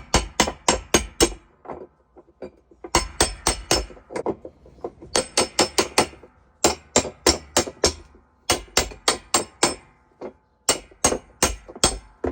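Hammer striking metal in six quick bursts of rapid blows, about four or five a second, each blow ringing briefly, with short pauses between bursts.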